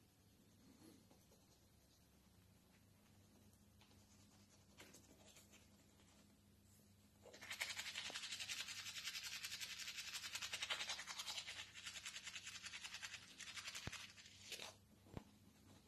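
Toothbrush scrubbing teeth: a fast, even, hissing brushing sound that starts about halfway through and runs for about seven seconds, then breaks into a few short strokes near the end.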